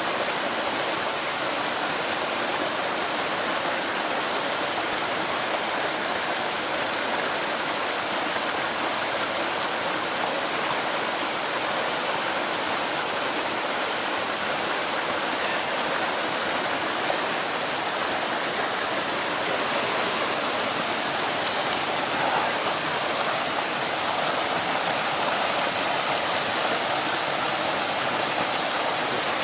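Mountain stream water flowing and splashing steadily over rocks. A faint high-pitched sound sits over it, steady at first, then pulsing about twice a second from about halfway.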